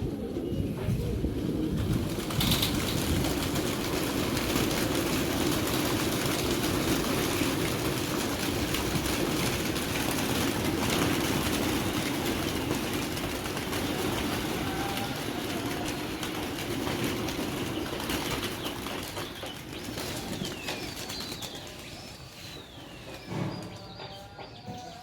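Wingbeats of a large flock of domestic pigeons in flight, a dense rushing flutter that fades over the last few seconds. A few high bird calls come through near the end.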